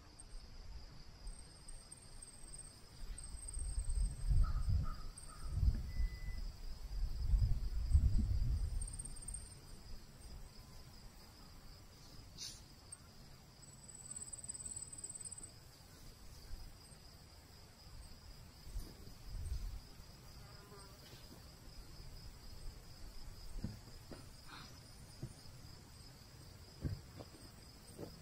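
A steady chorus of crickets chirring, with several louder low rumbles about four to nine seconds in and a few faint knocks later on.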